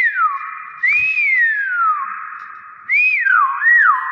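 Hill myna whistling: clear, pure whistled notes that rise and then glide down, a long one about a second in, then three or four quicker rise-and-fall whistles near the end.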